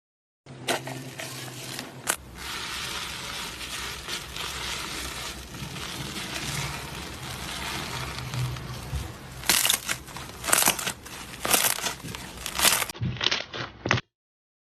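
Slime being squeezed and worked by hand: a steady crackling and crinkling, with loud sharp pops and snaps in the last few seconds.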